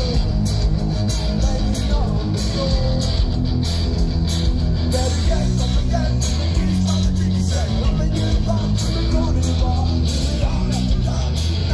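Live rock band playing through a big outdoor stage PA, heard from within the crowd: electric guitars, bass and drums with a steady beat.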